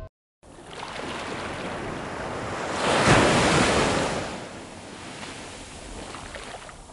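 Ocean waves breaking and washing in, a rushing surf sound that starts about half a second in, swells to its loudest around three seconds in, then eases off.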